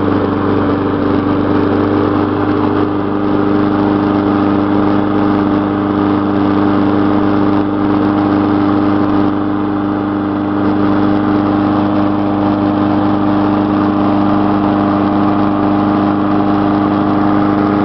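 Lawn mower's small gasoline engine running steadily at constant speed, left running to burn off old gas in the tank.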